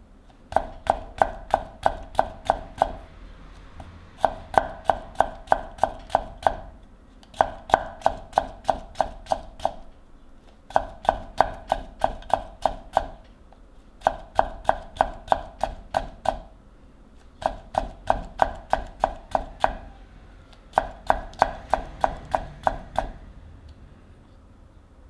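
A kitchen knife slicing a carrot into thin julienne strips on a ginkgo-wood cutting board. The knife makes quick, even taps, about four a second, each with a clear ringing tone. The taps come in runs of two to three seconds with short pauses between, and the last run stops about two seconds before the end.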